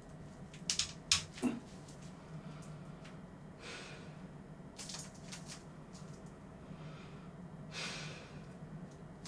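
Quiet handling noises: a few sharp clicks about a second in, then short scratchy rustles and scrapes.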